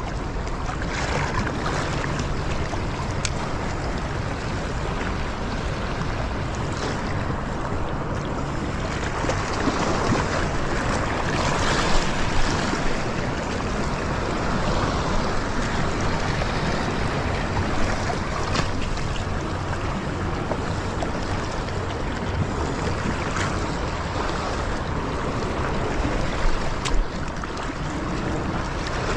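Harbour water washing and lapping against a sandstone rock ledge, with wind on the microphone. A low steady boat-engine hum runs under it for the first several seconds and again in the second half, and a few sharp splashes or knocks stand out.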